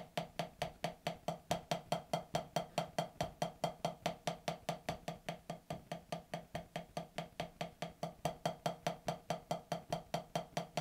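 Single drumstick strokes from one hand on a rubber practice pad, an even stream of about five dry taps a second. The hand is in traditional grip and plays wrist strokes, then arm rotation, then the looser second fulcrum that lets the stick bounce back for an open sound.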